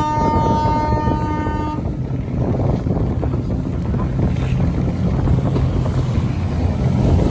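Motorboat engines drone low and steady under wind and water noise at sea. A steady pitched tone with several overtones sounds at first and cuts off suddenly about two seconds in.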